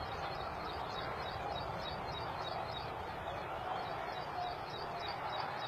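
Open-air rural ambience: a steady low hiss of outdoor background noise, with faint, rapidly repeated high chirps running through it.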